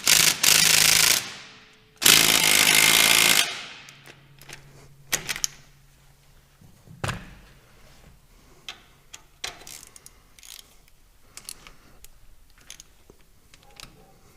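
An impact wrench running in two bursts of about a second and a half each, the second starting about two seconds in, working the bolt off the tractor's tach drive tube. Scattered light metal clicks and knocks follow.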